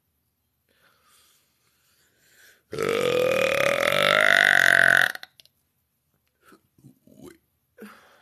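A woman's long, loud, deliberate burp of over two seconds, starting a little under three seconds in, with a voice-like pitch that rises slightly as it goes and stops abruptly.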